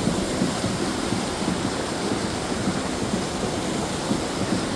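Steady rush of falling or running water, an even hiss-like roar with no change.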